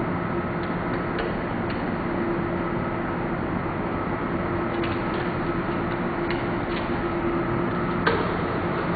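Steady background hum with scattered light clicks and one sharper click near the end, from the plastic parts of a Godex label printer being handled while its ribbon and label roll are loaded.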